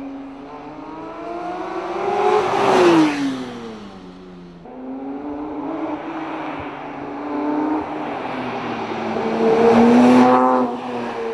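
Porsche 911 GT3 S/C's naturally aspirated 4.0-litre flat-six engine, its note climbing to a loud peak and then falling away twice, about 3 and 10 seconds in. The sound jumps abruptly about 4.5 seconds in.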